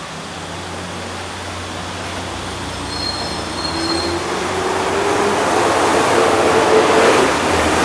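A large vehicle approaching: a rushing noise that grows steadily louder, with a tone coming in about halfway that rises slightly in pitch.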